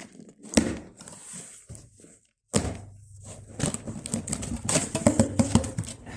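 Taped cardboard box being forced open by hand: a sharp knock about half a second in, scraping, then from about two and a half seconds in a dense run of cardboard and tape rustling with many small clicks.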